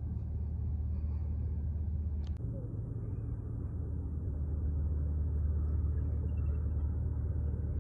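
Steady low rumble, with a single sharp click about two and a half seconds in.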